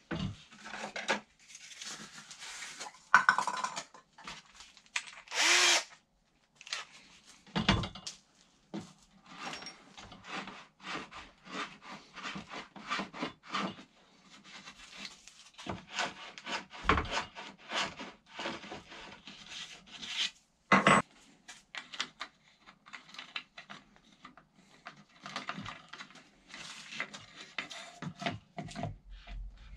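Hand work on a wooden panel: irregular rubbing and scraping with many small knocks and clicks of tools and parts, and a few short louder bursts.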